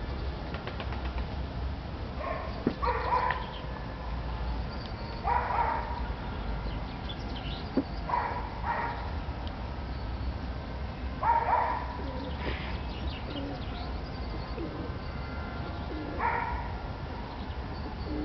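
Short animal calls repeated every two to five seconds, about six in all, each a brief rising cry over a steady low rumble.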